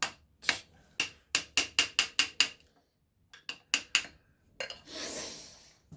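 Sharp metallic clicks of a steel screwdriver tapping and levering against the Honda CB750's clutch centre: about nine quick clicks, then four more after a short pause. A short breathy hiss follows near the end.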